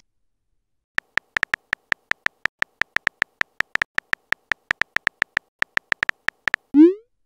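Keyboard typing sound effects from a texting-story app, a rapid even run of short synthetic key clicks, roughly five or six a second, as a message is typed. Near the end, a short rising pop: the message-sent sound.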